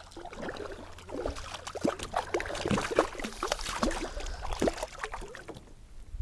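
Irregular splashing of water with many short clicks and knocks at a kayak, busiest in the middle, as a hooked bass is brought in.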